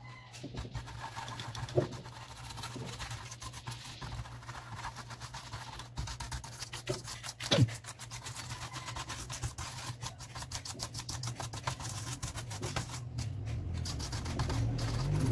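Scratchy rubbing and scrubbing on a laptop's plastic parts as dirt is cleaned off, with two sharper knocks, one about two seconds in and one about halfway through, over a steady low hum.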